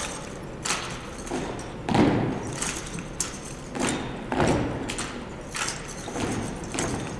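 Drill rifles slapped by hand and struck on a hardwood gym floor as a squad works through manual-of-arms movements together: a string of sharp slaps and thumps, one or two a second, echoing in the large hall.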